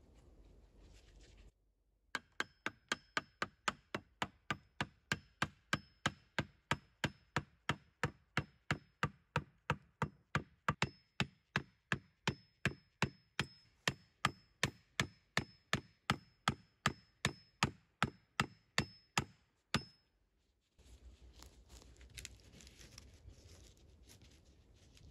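A wooden stake being driven into the ground by blows from a wooden mallet cut from a log: a long, even run of sharp wooden knocks, about two and a half a second, that starts about two seconds in and stops about twenty seconds in.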